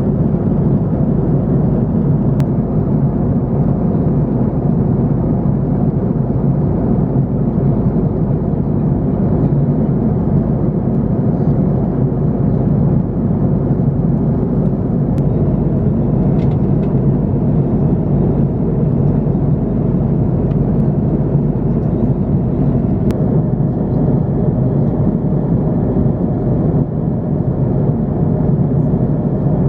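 Steady low rumble of cabin noise aboard an Airbus A330-300 airliner in flight, with a faint click or two.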